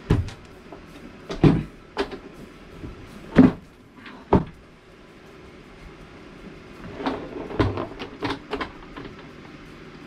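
Wooden knocks and bumps as a wooden seat unit is handled and set back into place. There are single loud knocks in the first half, and a quicker run of smaller knocks a little after the middle.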